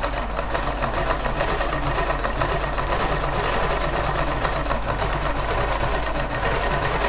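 Ralson zigzag sewing machine running at a steady speed, its needle stitching with a fast, even rattle over a low hum. It is a test seam after the bobbin case's tension screw has been adjusted to cure poor zigzag stitching.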